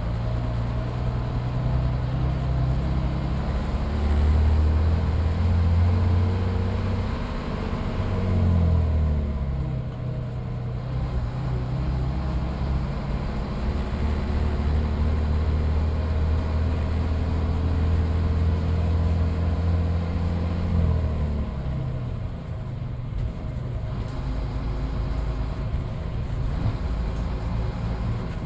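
Midland Red BMMO D9 double-decker bus's diesel engine pulling under load. Its pitch climbs for several seconds, drops sharply at a gear change about eight seconds in, holds steady, then falls away about twenty-one seconds in as the bus eases off.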